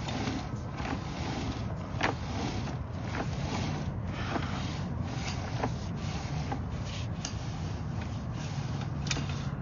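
Sewer inspection camera's push cable being fed through a cast iron drain line, with irregular clicks and knocks over a steady low hum.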